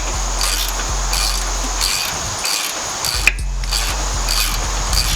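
Hand ratchet backing out a brake caliper bracket bolt: a rasping click repeating a little more than once a second, with one sharper metallic clink about three seconds in, over a low steady hum.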